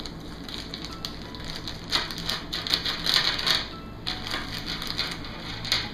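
Small clear plastic bag crinkling as it is handled and opened, with small electrolytic capacitors clicking against one another and the table as they are tipped out. The crinkling is loudest from about two to three and a half seconds in.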